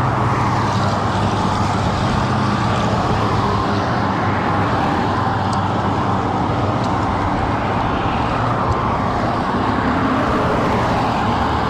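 Steady road traffic noise from cars on the highway alongside, heard from a bicycle riding along the shoulder.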